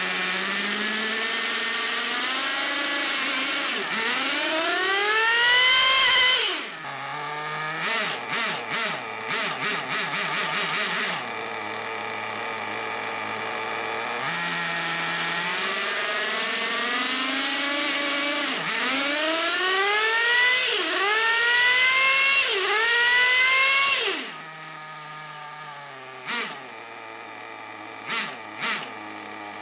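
Team Infinity nitro engine of an RC monster truck revving hard on a stand: long climbs to high rpm and full throttle, a burst of quick throttle blips, and spells of idle between them. About 24 seconds in it drops to a quieter idle with a few short blips. It pulls to full throttle cleanly with no bogging, the sign of a well-set carburettor.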